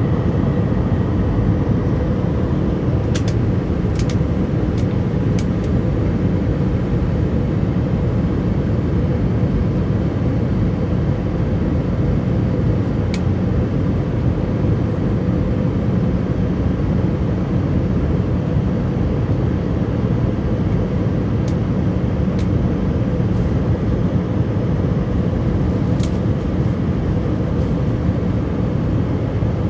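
Steady in-flight cabin noise of an Airbus A319-111 heard from a window seat beside the wing: the CFM56 jet engines and the rush of air over the fuselage, with a faint steady hum. A few faint clicks a few seconds in, once mid-way, and several more near the end.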